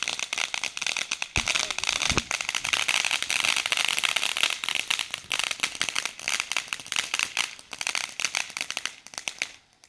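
A firework crackling: a dense, rapid stream of sharp pops and snaps with a couple of deeper bangs in the first few seconds, cutting off near the end.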